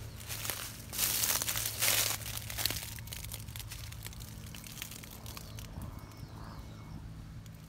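Footsteps crunching through dry fallen leaves, loudest in the first three seconds, then softer, scattered rustling.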